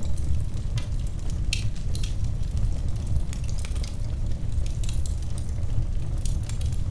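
Wood fire burning in a fireplace, crackling: scattered sharp snaps and pops over a steady low rumble.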